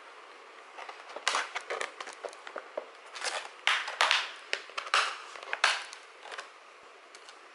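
Plastic clicks and short scrapes as the tight bottom memory-access cover of an Acer Predator Helios 300 laptop is unscrewed and pried open, in a series of sudden clacks that come thickest in the middle.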